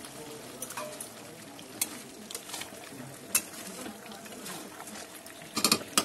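Wooden spatula stirring chicken curry and fried potato chunks in a metal pan, with several sharp knocks and scrapes against the pan and a quick cluster of them near the end, over a low steady sizzle of the curry frying down.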